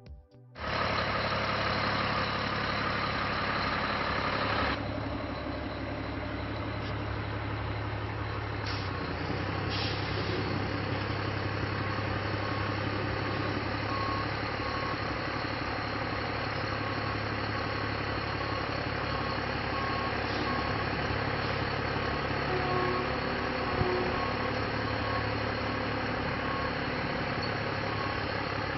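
Fire truck's Cummins ISM 10.8-litre six-cylinder diesel running steadily at idle, a little louder for the first five seconds before settling. A faint short beep repeats about every second and a half through the second half.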